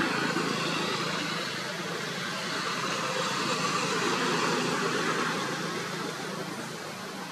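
A motor vehicle engine running steadily, heard with a broad hiss, easing off near the end.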